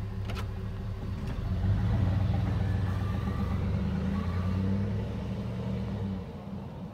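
Pickup plow truck's engine running as it drives off, getting louder about two seconds in, then fading over the last second as it moves away.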